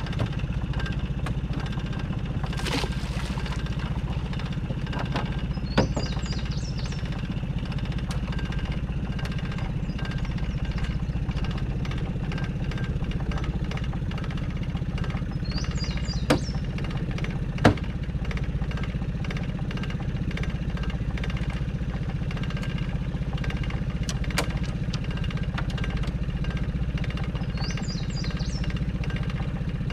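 Boat's outboard motor idling steadily, with a few sharp clicks and knocks now and then. A short high chirp is heard three times, about ten seconds apart.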